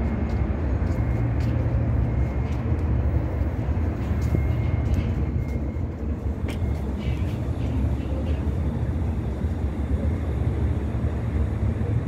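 Steady low rumble of street traffic, with a few faint ticks.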